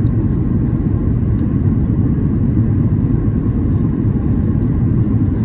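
Steady cabin noise inside a Boeing 737-800 on approach with flaps extended: an even, deep rumble of airflow and CFM56 engines.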